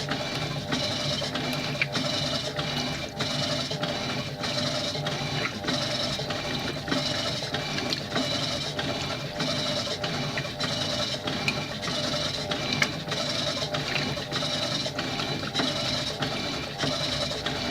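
Electrolux washing machine in turbo agitation: the agitator churning the wash back and forth in a quick, even rhythm of about two to three strokes a second over a steady motor hum.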